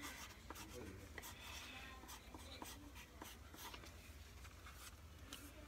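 Faint scratching of a pencil writing a word on a sheet of lined paper, with small ticks of the strokes.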